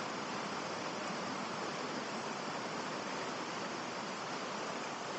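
Shallow river rapids running steadily: an even rush of water over stones, with no bird calls standing out.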